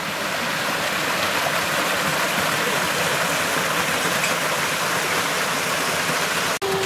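Small waterfalls spilling over rocks into a pool: a steady rush of falling water.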